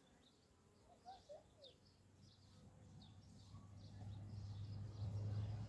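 Faint bird chirps in the first half, then a low steady hum that grows louder from about halfway in and becomes the loudest sound.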